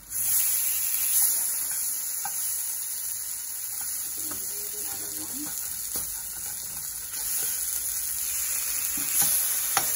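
Salmon fillets sizzling in hot coconut oil in a stainless steel frying pan as they are turned over with a slotted metal spatula. The sizzle jumps louder right at the start and again about seven seconds in, with a few light scrapes and clicks of the spatula against the pan.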